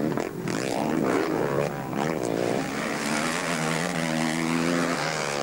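Motocross racing motorcycles on the track, their engines revving up and down in the first half, then holding a steadier note.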